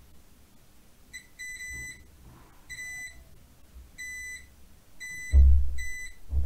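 Multimeter continuity beeper sounding short steady high beeps, about six of them, as the probes touch connector pins one by one: each beep signals that the pin has continuity. A dull thump about five seconds in is the loudest sound.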